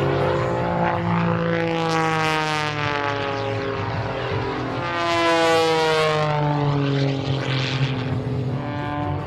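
A propeller airplane flying past twice, its engine note sliding down in pitch as it goes by. The second pass, about halfway through, is louder.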